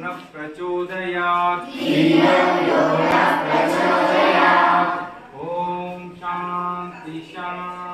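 A group of voices chanting in unison over a steady low drone, swelling loudest from about two to five seconds in.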